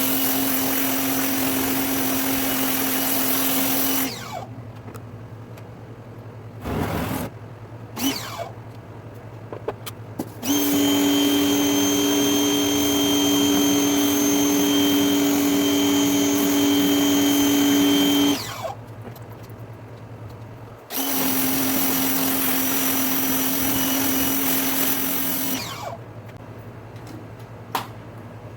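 Greenworks 2000 psi electric pressure washer's motor and pump running with a steady whine and the hiss of the water spray, in three runs of several seconds each. It stops sharply between runs as the trigger is released.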